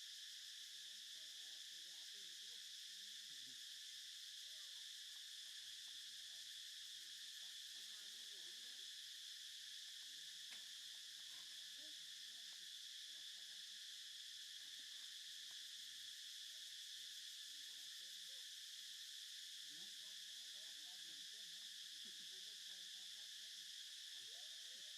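Faint, steady chorus of insects such as crickets or cicadas: an even, high drone that holds without change.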